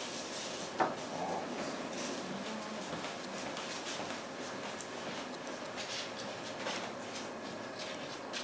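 Grooming scissors snipping the fur around a Shih Tzu puppy's face: a run of light, quick metallic snips at uneven spacing, with one sharper click about a second in.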